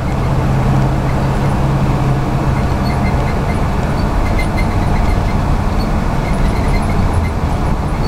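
Steady engine hum and tyre road noise inside the cabin of a moving vehicle, with a low drone that is strongest in the first few seconds.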